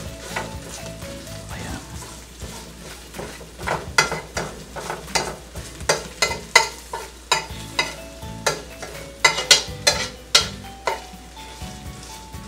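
A metal spoon scraping and clinking against a stainless steel pan, stirring minced garlic and ginger that sizzle lightly in hot olive oil. The scrapes come thick and fast in the middle of the stretch.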